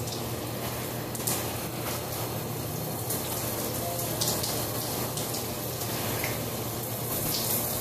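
Shower running steadily, its spray splashing onto a person in a tiled stall.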